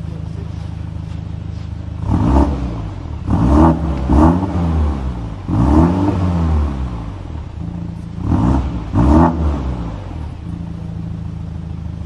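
BMW M235i Gran Coupé's turbocharged four-cylinder exhaust idling steadily, then blipped six times in quick revs, each rising and falling, from about two seconds in until about ten seconds, before it settles back to idle.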